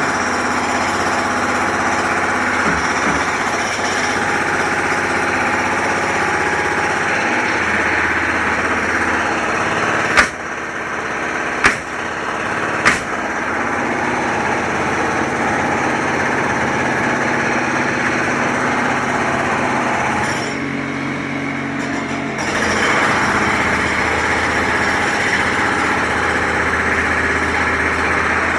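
Construction-site machinery running steadily with an engine hum, and three sharp metallic bangs about ten to thirteen seconds in. The machine noise drops back briefly about twenty seconds in, then picks up again.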